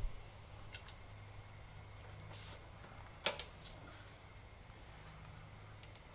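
A tyre inflator's air chuck being handled at a motorcycle tyre valve: a few sharp clicks and a short hiss of air about two and a half seconds in, over a faint steady hum.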